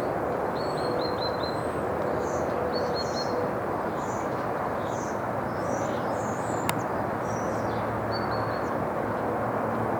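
Small songbirds chirping in quick runs of short, high, falling notes over a steady rushing background noise, with one sharp click about two-thirds of the way through.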